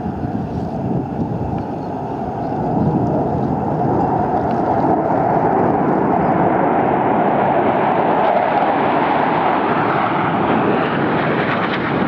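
Military fighter jet passing overhead, its engine roar building about three seconds in and becoming brighter and higher through the second half.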